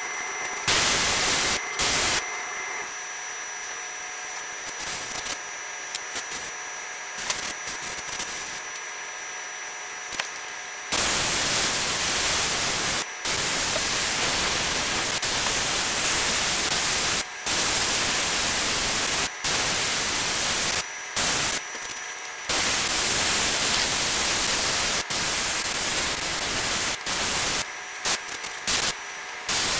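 Gravity-feed airbrush hissing as air sprays, cutting in and out abruptly as the trigger is pressed and released: short bursts, then a long continuous spray of about ten seconds in the middle.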